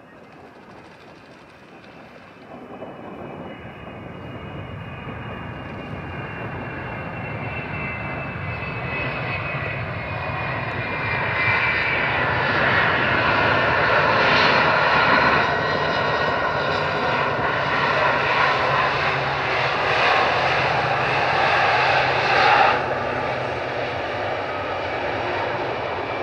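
Boeing 757-200 jet engines during the landing rollout. The engine noise swells as the airliner nears and passes, with whining tones that fall in pitch. It drops off abruptly about 22 seconds in.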